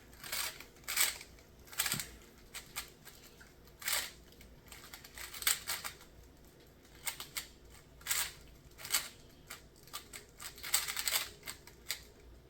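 A Rubik's Cube being turned fast by hand: plastic layers clicking and rasping in quick irregular bursts, with short pauses between.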